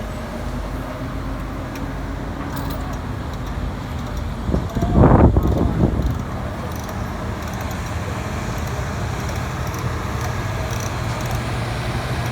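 Steady low engine rumble, with a louder rush of noise lasting about a second and a half, about five seconds in.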